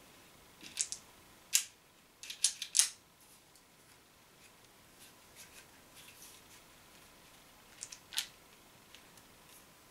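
Sharp clicks from the mechanism of an Umarex HDP50 CO2 pistol being worked by hand while it refuses to fire aluminium balls: a quick run of about six clicks starting about a second in, then three more near the end.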